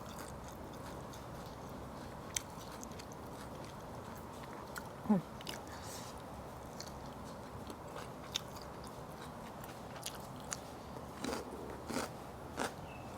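Close-up eating sounds: a person biting and chewing crunchy raw vegetables, with scattered sharp crunches over a quiet background.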